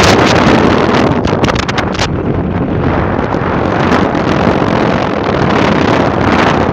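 Wind buffeting the microphone of a vehicle moving fast along a paved road, over a steady low rumble from the vehicle. The gusts are strongest in the first two seconds.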